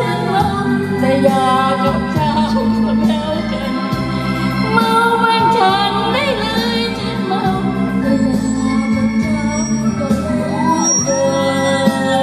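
Loud dance music: a singer's wavering, held notes over an organ-like keyboard and a steady bass line.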